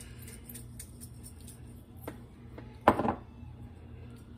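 Steady low kitchen hum with a faint click about two seconds in, then one sharp knock about a second later, from salt and pepper shakers being handled and set down on the counter while the cornmeal mix is seasoned.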